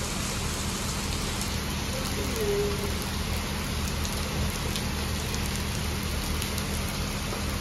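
Heavy rain pouring down onto a flooded road and paving: a steady hiss of rainfall and splashing water.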